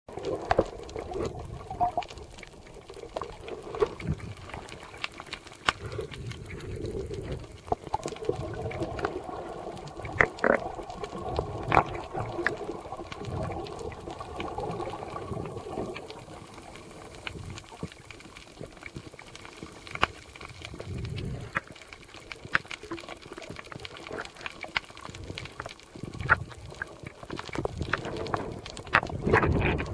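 Muffled underwater sound recorded by a camera submerged in the sea: scattered sharp clicks and knocks with low thuds from a swimmer moving through the water, and a steady hum in the first half.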